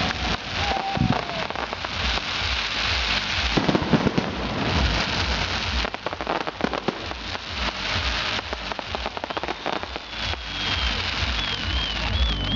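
Fireworks display: a dense, steady crackling of countless small pops, like heavy rain, from crackling shells bursting overhead. A wavering whistle comes in near the end.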